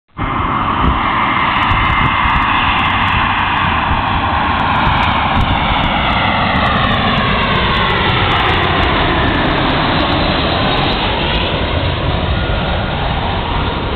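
Airbus A320 jet engines running at approach power as the airliner passes low overhead on final approach, gear down. A loud steady roar, with an engine whine that drops in pitch as it goes by, about six to ten seconds in.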